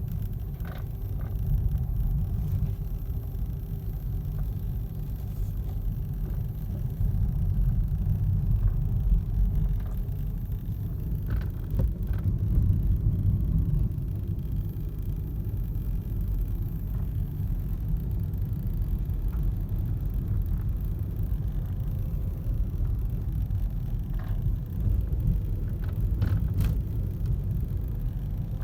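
Inside the cabin of a moving Hyundai Grand i10 Nios: a steady low road-and-engine rumble, with short rattles and clicks from the dashboard at scattered moments. The dashboard rattle is a trim fault in a car driven only about 3,000 km.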